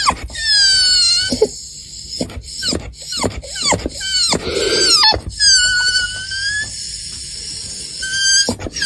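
A dog whining in a run of high-pitched squeals, some held steady and others dropping sharply in pitch, with short breaks between them.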